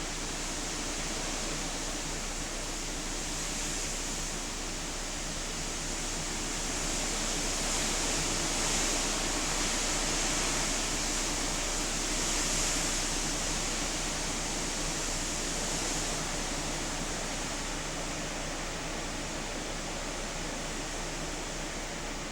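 Hurricane wind and rain: a steady rushing hiss that swells louder between about seven and sixteen seconds in, then eases.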